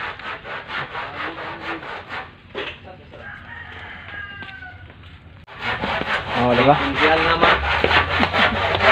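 Hand saw cutting wood in steady rasping strokes, about three a second, easing off in the middle while a rooster crows, then louder and faster strokes in the last few seconds.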